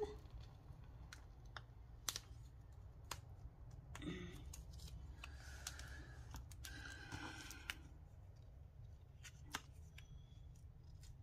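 Faint rustling and light clicks of small paper labels and scraps being handled and set down on a desk.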